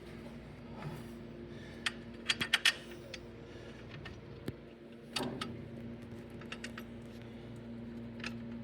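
Sharp metallic clinks and taps of steel clutch parts and tools being handled while the pressure plate is fitted to the flywheel. There is a quick run of four clinks about two and a half seconds in and a heavier clunk with a short scrape about five seconds in, over a steady low hum.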